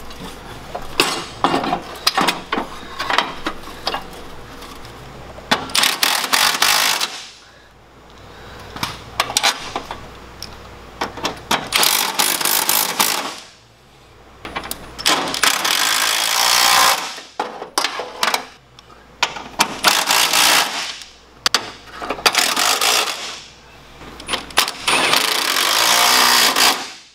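Cordless impact driver hammering bolts into a bumper's frame-mount bracket in several bursts of a second or two each. Short metallic clinks and knocks of bolts and parts come between the bursts.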